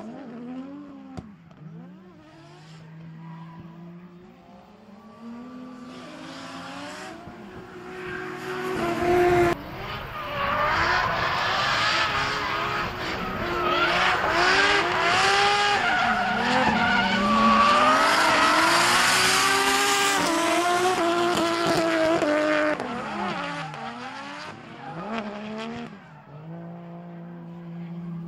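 Two drift cars sliding in tandem, their engines revving up and down over the screech of spinning tyres. The sound is louder through the middle.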